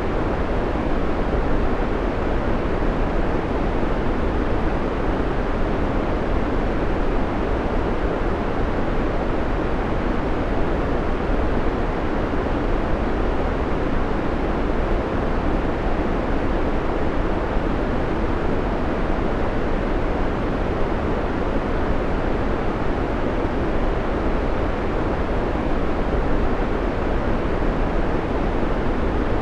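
Steady, unchanging white noise played as a background sound, a smooth hiss weighted toward the low and middle range.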